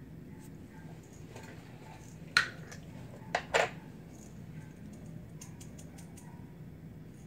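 Glass jar of whole black peppercorns being opened and handled: one sharp clack about two and a half seconds in and two more quick clacks a second later, then a few light ticks as peppercorns are shaken out into a palm, over a steady low hum.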